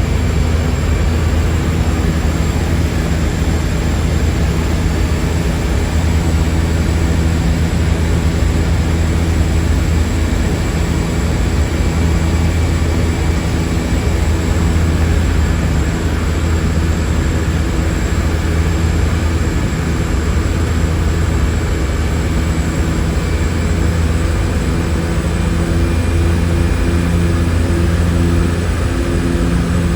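Seaplane's propeller engines running steadily in flight: a constant loud low hum with a few steady higher tones over a even rush of noise.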